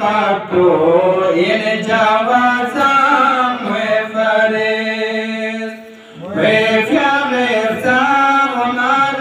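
A man chanting a Balti devotional qasida in a solo unaccompanied voice, with a long held note around the middle that fades out before the chant picks up again.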